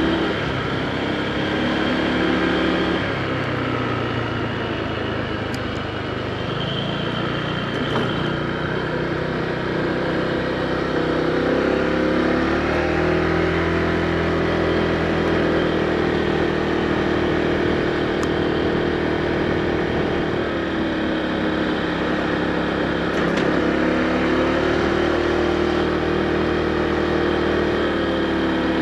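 Honda PCX160 scooter's single-cylinder engine running while riding, its note falling and rising a few times as the throttle changes.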